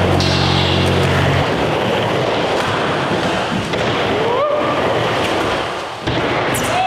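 A rock music track cuts out about a second and a half in, leaving the steady rolling noise of skateboard wheels on an indoor skatepark floor. Two brief sliding tones come through, one in the middle and one near the end.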